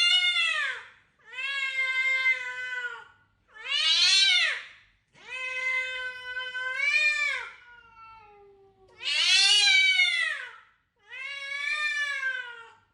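Domestic cat meowing over and over: about six long, drawn-out meows, each rising and then falling in pitch, with short pauses between them.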